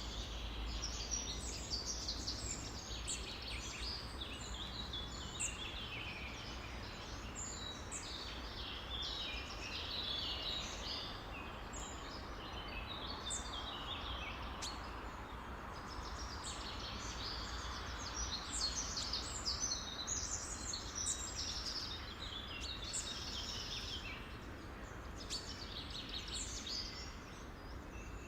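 Many birds chirping and singing over one another in a dense, unbroken chorus, over a steady low background rumble.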